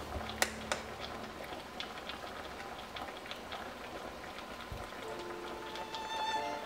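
Water boiling and bubbling around chicken pieces in an aluminium pot, a steady crackling fizz, with two sharp clicks about half a second in. Soft music comes in near the end.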